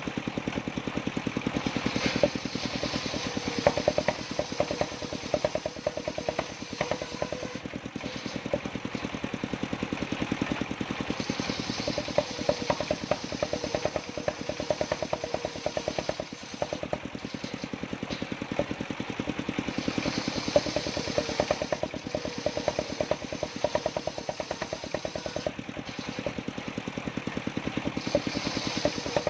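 Engine of a mobile circular sawmill running steadily with a fast, even chugging, while the saw blade cuts through jowar wood in several passes, a hiss swelling for a few seconds with each cut.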